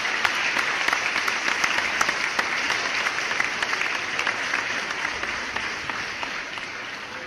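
Crowd applauding, a dense patter of many hands clapping that slowly fades away over the last few seconds.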